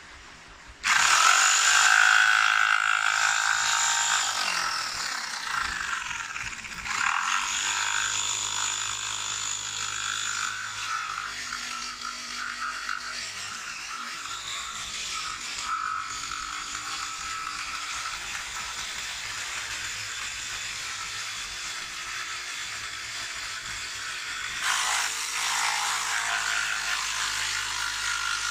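Electric jigsaw cutting a wooden board, its blade buzzing steadily through the wood after starting up about a second in.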